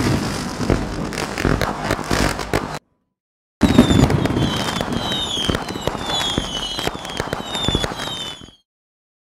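Fireworks crackling and popping in quick, dense bursts, which cut off abruptly after about three seconds. After a moment of dead silence they start again, now with a string of high whistles that each fall in pitch, and stop abruptly near the end.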